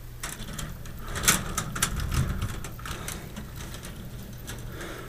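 Irregular clicking and rattling of wires and plastic push-in wire connectors being handled at a fluorescent light fixture, busiest in the first half, over a steady low hum.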